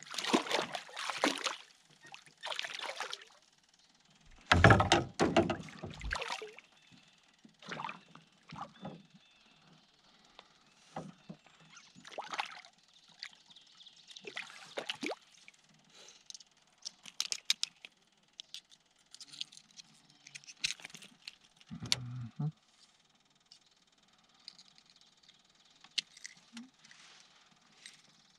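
Water splashing and sloshing against a canoe in irregular bursts, with a couple of heavier bumps about five seconds in and again near the end, plus handling noise.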